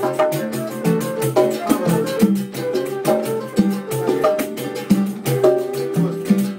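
A live acoustic group playing a rhythmic Latin-style groove. An acoustic guitar, a small transverse flute, conga drums, a berimbau and a hand frame drum play together, with a repeating low figure and regular drum strokes.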